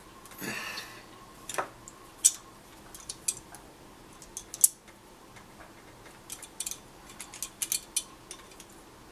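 Pliers clicking against an aluminum wire: sharp, irregular small metal clicks, more frequent near the end, after a brief rustle about half a second in.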